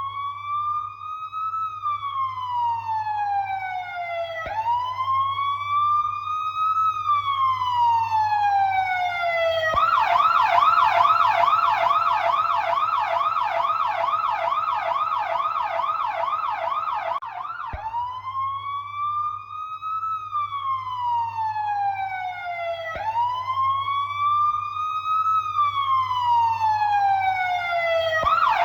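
Electronic siren sounding a slow wail that rises and falls about every four and a half seconds. About ten seconds in it switches to a fast yelp of rapid up-and-down sweeps for some seven seconds, then returns to the slow wail, and switches to the fast yelp again at the very end.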